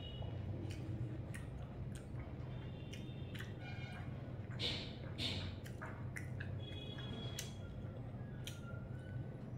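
Eating by hand: fingers working rice and fish curry on a plate, then chewing, heard as scattered small wet clicks and squishes over a steady low hum.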